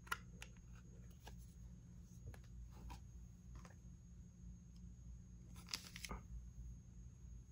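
Faint handling sounds: scattered light clicks and taps, with a brief crackly rustle about six seconds in, over a low steady room hum.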